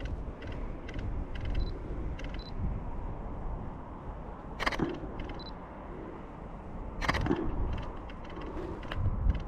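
Canon EOS R6 shutter firing twice, about two and a half seconds apart, each a quick double click, with lighter clicks from the camera before them, over a steady low rumble.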